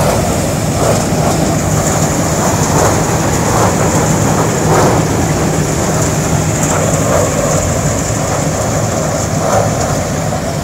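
Balkar combine harvester, powered by a Farmtrac 6065 engine, running steadily under load while it cuts and threshes ripe rice. Its engine and threshing machinery make a loud, even drone with a thin, steady high whine on top.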